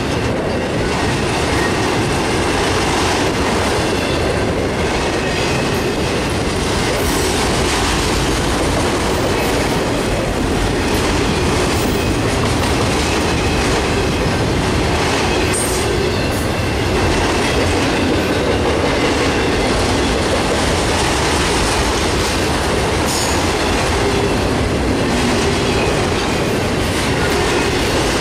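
A freight train of autorack cars rolling past at speed: steady wheel-on-rail noise with occasional sharp clicks.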